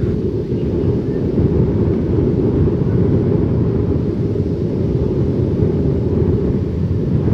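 Heavy wind buffeting the microphone: a steady, loud low rumble.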